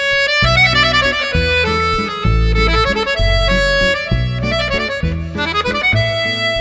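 Instrumental background music with a steady bass pattern under a busy, quick-moving melody.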